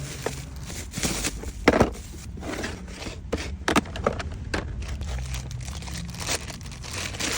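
Irregular clicks and knocks with some rustling, as of things being handled and set down; no motor is heard running.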